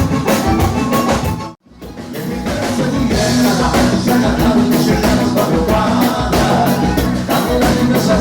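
Gaúcho dance band playing live with drum kit, bass and melody instruments, a steady danceable beat. About a second and a half in, the sound cuts out completely for a moment and then comes back in.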